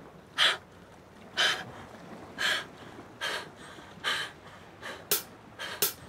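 A woman crying: a run of short gasping sobs, about seven, roughly one a second.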